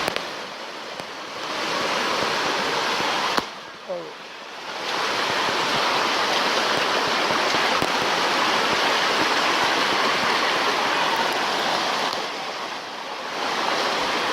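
A jungle stream rushing steadily, running higher than a day earlier. The rush dips briefly three times, the second dip opening with a sharp click about three and a half seconds in.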